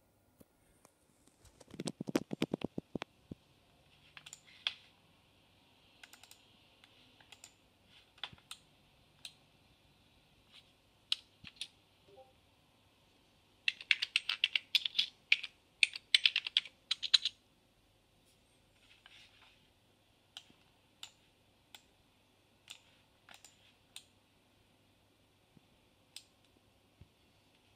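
Typing on a computer keyboard: scattered single keystrokes and clicks, a heavier clatter about two seconds in, and a quick run of typing from about fourteen to seventeen seconds as a shell command is entered.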